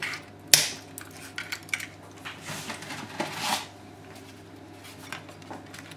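Dry lasagna sheets handled and pressed into a ceramic baking dish. A sharp click comes about half a second in, followed by scattered light clicks and a brief scraping rustle around the middle.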